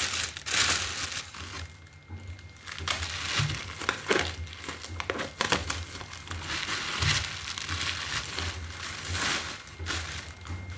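Thin plastic wrap crinkling and rustling in irregular bursts as it is pulled and peeled off a trimmed young green coconut.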